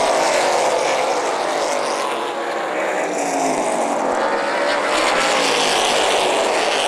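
Outlaw Super Late Model race cars' V8 engines running hard at racing speed, several cars at once. The engine pitch falls over the first couple of seconds and rises again near the end.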